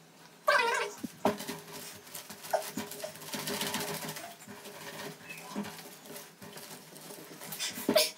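A towel-wrapped pineapple being rolled and pressed by hand on a table: cloth rubbing and light knocks, to soften the fruit. A short whining cry about half a second in is the loudest sound.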